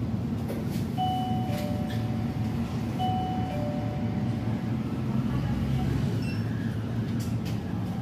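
Shop door entry chime sounding a two-note ding-dong, high note then lower, twice about two seconds apart, over a steady low hum.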